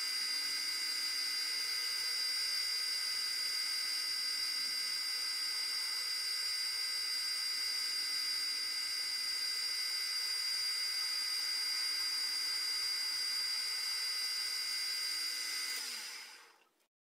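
Manual metal lathe running under cut, turning a curved profile: a steady high-pitched whine from the machine that holds even throughout and fades out near the end.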